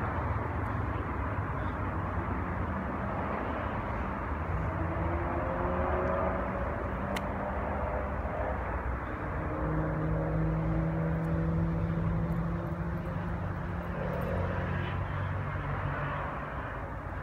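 A car engine running: a steady low rumble with faint tones that slowly rise and fall in pitch, a little louder about two-thirds of the way through.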